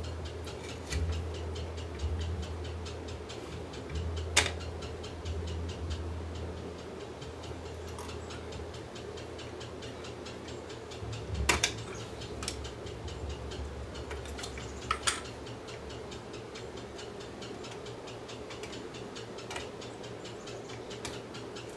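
Faint steady ticking, several ticks a second, over a low hum, with a few sharper clicks at about four, eleven and fifteen seconds in.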